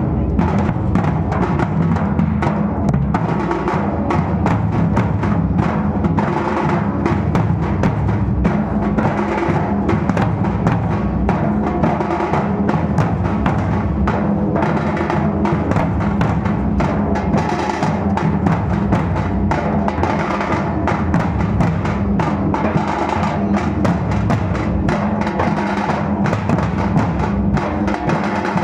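Dhol-tasha drumming: large dhol barrel drums and tasha kettle drums beaten in a dense, continuous rhythm, at a steady loud level.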